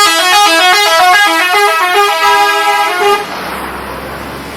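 Indonesian tour bus's multi-tone 'telolet' horn playing a quick stepping tune of several notes for about three seconds, then cutting off suddenly.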